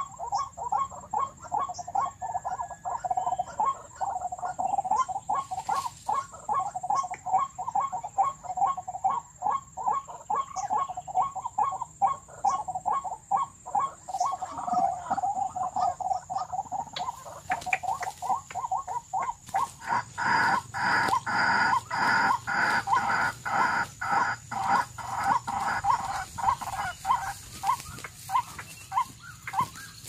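White-breasted waterhen calls, the 'ruak ruak' call repeated quickly, about three or four a second, growing louder and fuller about two-thirds of the way through.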